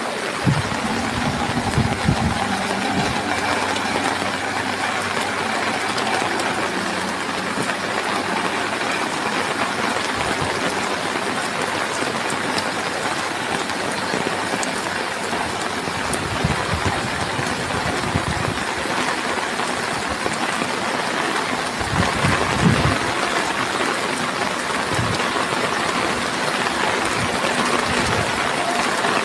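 Steady rain and water noise with vehicle engines running, and louder passes now and then.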